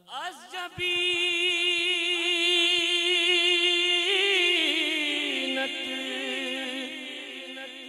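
A man singing a manqabat, a Sufi devotional hymn, solo and unaccompanied: a short rising phrase, then one long held note with heavy vibrato that steps down in pitch about four and five seconds in and slowly fades.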